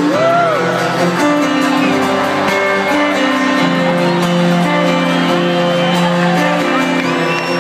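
A live rock band playing a song at a concert, with guitar over steady held chords.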